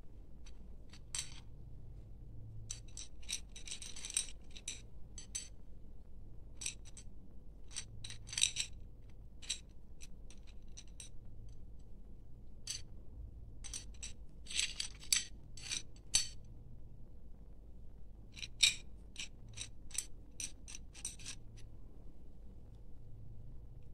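Small acrylic decoration pieces clicking and clinking against each other and a patterned ceramic plate as a gloved hand rummages through them, in irregular short clicks with a few louder clacks.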